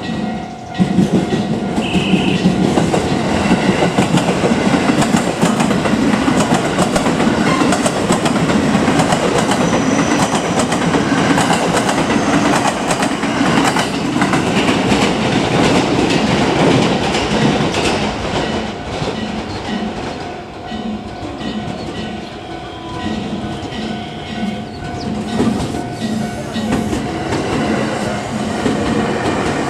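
JR Hanwa Line electric train passing over a level crossing at close range, starting loud and sudden about a second in, its wheels clacking over the rail joints in an even rhythm later on.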